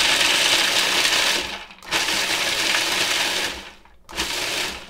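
Food processor pulsed in three bursts, the last one short, chopping walnut pieces, parsley and salt toward a coarse-sand texture.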